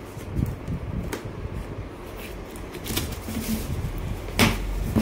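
Cardboard shipping box being opened by hand: flaps lifted and bent back, giving scattered scrapes and knocks, the loudest about four and a half seconds in.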